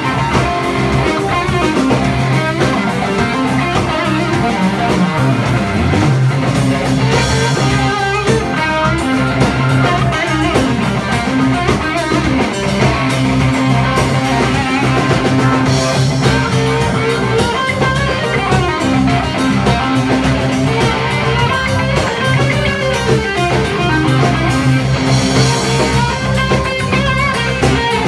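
Live rock band playing: electric guitar over drums and bass guitar, with steady low bass notes and busy guitar lines.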